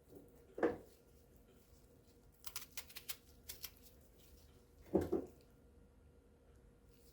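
A kitchen knife cutting an onion in half on a cutting board: two sharp knocks of the blade hitting the board, about half a second in and about five seconds in, with a short run of light clicks and crackles between them.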